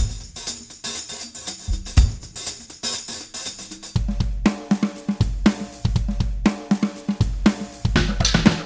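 Background music that opens abruptly on a drum kit with busy cymbals and hi-hat; a heavy kick drum and bass line come in about four seconds in.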